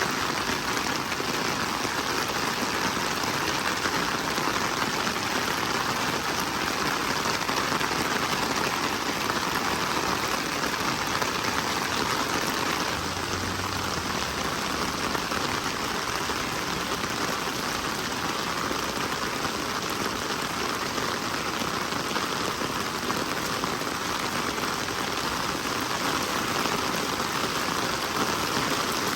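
Steady rain falling and hitting surfaces: an even, unbroken hiss.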